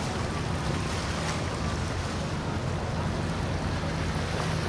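Sea-Doo GTX personal watercraft engine running at low idle speed, a steady low hum, under a constant wash of water and wind noise on the microphone.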